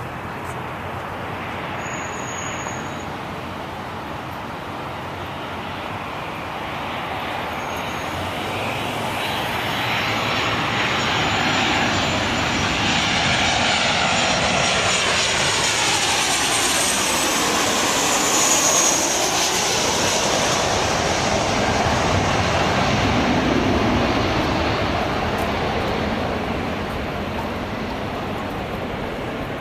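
Boeing 737-700 jet on landing approach passing by, its CFM56 turbofan engines growing louder, then the engine whine sliding down in pitch as it goes past about halfway through, and fading over the last few seconds.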